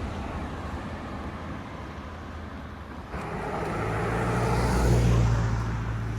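A motor vehicle passing by: its noise swells from about halfway in, peaks about five seconds in, then eases, over a steady low hum.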